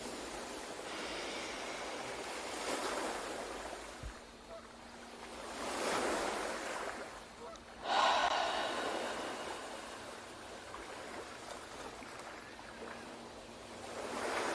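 Ocean waves washing in and out on a shore. They swell about six seconds in, surge suddenly a little before eight seconds, then settle back to a steady wash.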